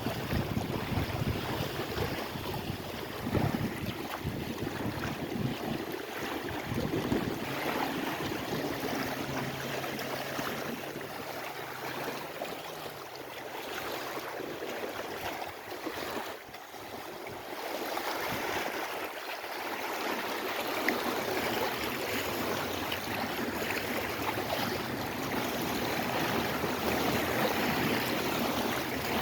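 Lake Erie waves: a steady wash of water with wind buffeting the microphone in the first few seconds. The wash eases briefly just past the middle.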